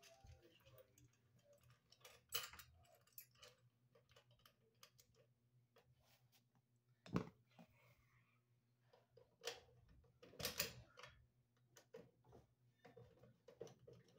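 Faint, scattered small metallic clicks and taps of a screw being fitted and turned with a screwdriver into the sheet-metal cord clamp bracket on the back of an electric range, with a few sharper knocks, the loudest about seven seconds in.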